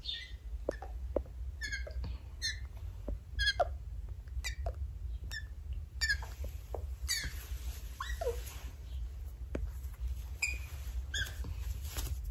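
Young Australian magpie giving short, squeaky high-pitched calls, about one a second, over a low steady hum.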